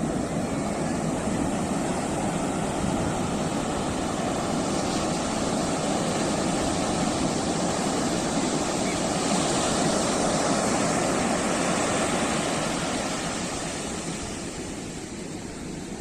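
Sea surf breaking and washing up the beach: a steady rush of waves that swells about two-thirds of the way through and eases off near the end.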